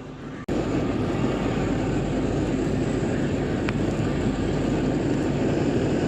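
Canister gas stove burner running steadily under a cup of water coming to the boil. The sound sets in abruptly about half a second in.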